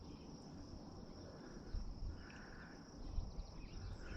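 Faint outdoor natural ambience: a steady high-pitched insect-like trill, with a lower call repeating every second or two. A low rumble with a couple of soft knocks underneath.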